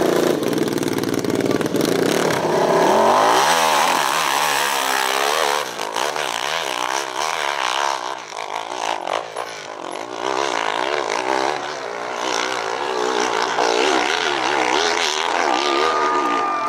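Open-class (700cc and up) hillclimb motorcycle engine revving hard, its pitch surging up and down over and over as the bike claws up the hill.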